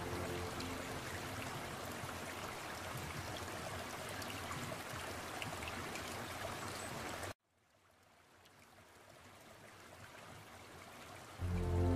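Steady running water, like a stream or trickle, that cuts off suddenly about seven seconds in. It comes back faintly and grows louder toward the end.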